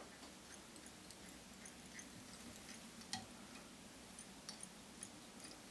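Near silence with a few faint ticks and clicks from tying thread being wound onto a fly hook with a bobbin holder, one slightly louder click about three seconds in.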